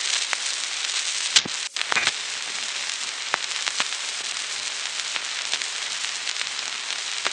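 Surface noise of a 1929 sound-on-disc record with no music or speech on it: a steady hiss with crackle and scattered pops, a sharp click about a second and a half in and a brief dropout just after.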